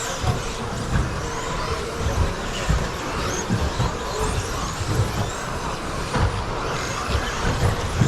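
A pack of 1/10-scale electric RC stadium trucks with 13.5-turn brushless motors racing on an indoor carpet track: overlapping high motor whines rising and falling as the trucks accelerate and brake, over steady tyre and drivetrain noise, with scattered low thumps.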